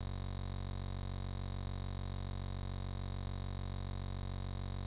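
Background music: a steady synthesizer drone, many notes held at once without any change.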